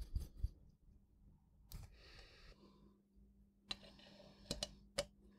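Faint, scattered clicks and taps of small watchmaking tools and parts being handled at a bench: a few near the start, one at about a second and a half, and a cluster in the last two seconds. A faint steady hum comes in about halfway.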